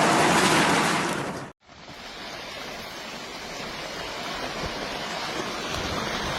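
A loud, steady rushing noise cuts off suddenly about a second and a half in. After a moment of silence a quieter rushing rumble of a landslide begins and slowly grows, a sound like a raging river.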